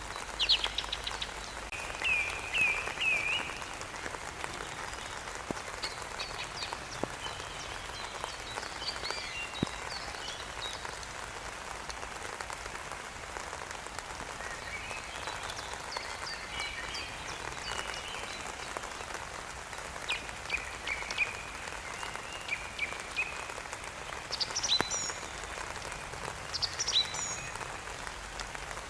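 Steady rain falling, with birds singing in short chirping phrases that come and go over it, busiest near the start and again in the last third.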